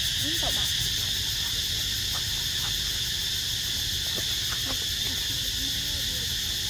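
Steady outdoor insect chorus with a fast, even pulsing, the loudest sound throughout. Over it come a few short, faint squeaky calls that rise or waver, several of them about two-thirds of the way through.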